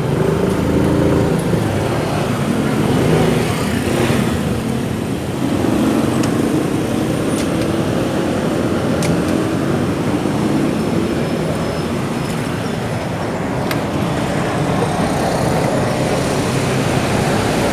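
Motorcycle engine running in street traffic, its pitch rising and falling with the throttle, over a steady wash of other vehicles and road noise.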